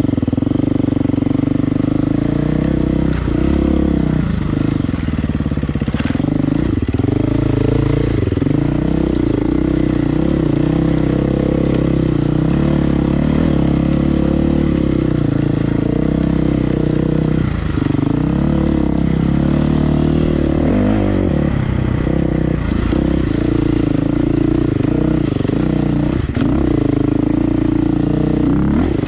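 Dirt bike engine running continuously while being ridden, its pitch dipping and climbing back a few times as the throttle is closed and opened again.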